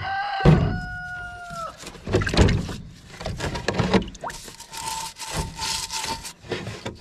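A parts-washer brush scrubbing a wagon wheel hub in solvent, in a run of uneven strokes. A rooster crows once at the start, one call of over a second.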